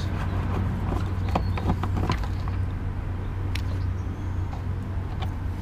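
Irregular light clicks and taps of plastic and metal as a car's front fog lamp and its bumper trim are worked by hand and with a small tool, over a steady low rumble.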